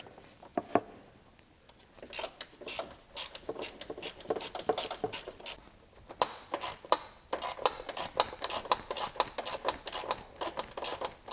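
Irregular small clicks and scrapes of a hand tool working out the T25 Torx screws at the radiator's top corners, metal on plastic, coming thicker from about two seconds in.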